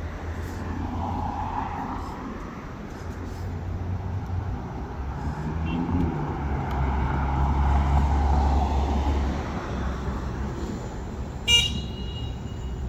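City road traffic: passing vehicles make a steady low rumble that swells around the middle. A single short, sharp horn toot comes near the end.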